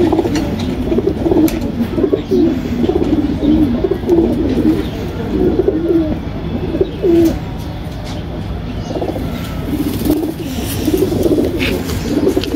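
Domestic pigeons cooing, their low, rolling calls overlapping continuously.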